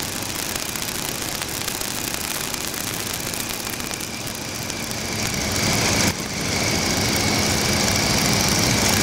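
Stearman biplane's radial engine running in flight, heard from the open cockpit mixed with rushing wind. The sound grows louder from about five seconds in, drops briefly a second later, then stays loud.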